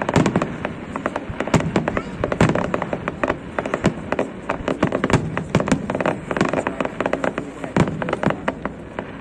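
Fireworks display: a rapid barrage of many overlapping bangs and crackles that thins out and grows quieter near the end.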